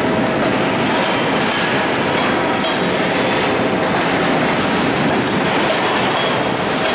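Empty steel gondola cars of a Ferromex freight train rolling past close by: a steady, loud rolling noise of wheels on the rails.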